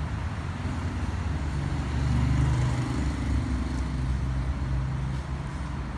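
Low, steady motor-vehicle engine rumble, swelling a little about two seconds in.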